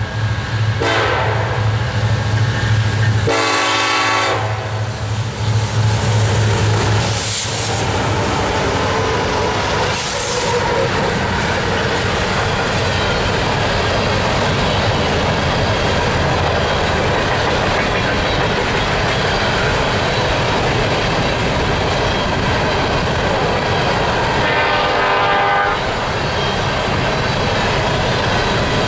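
Freight diesel locomotives led by an EMD SD70ACe sounding their horn for a level crossing in a short blast and a longer one, engines running heavily as they pass. Empty coal gondolas then roll by with a steady clickety-clack of wheels on rail, and a horn sounds once more about 25 seconds in.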